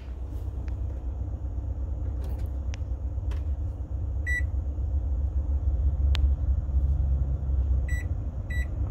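Microwave oven keypad beeping as its buttons are pressed to set the time: one short high beep about four seconds in, then two more half a second apart near the end, with faint button clicks. A steady low rumble runs underneath.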